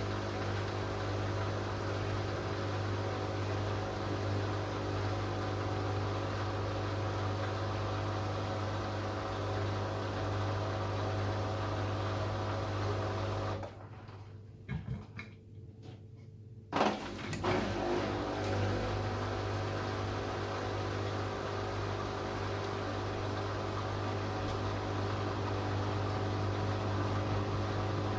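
Hoover Dynamic Next washing machine running on a spin-only cycle, a steady low machine hum. About halfway through it stops for roughly three seconds, a few sharp clicks follow, and then the hum starts again.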